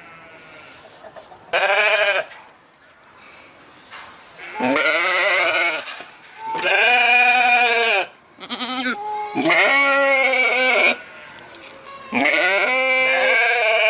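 Sheep bleating: about five loud, quavering bleats, each lasting around a second, with short pauses between them.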